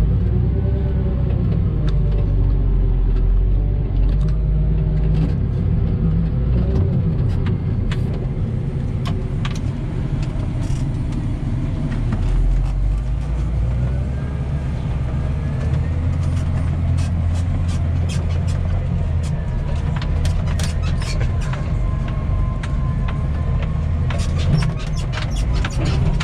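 Tractor engine running steadily with a deep, continuous rumble, with some light knocks and rattles in the last few seconds.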